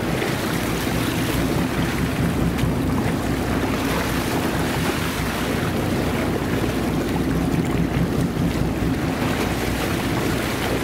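Sport-fishing boat's engine running steadily, with rushing water and wind buffeting the microphone.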